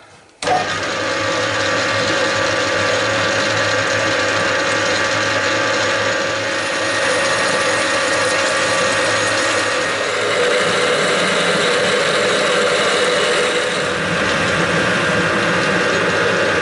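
Metal lathe starting up about half a second in, then running steadily with a gear whine while a twist drill in the tailstock bores into a metal plate held in the three-jaw chuck.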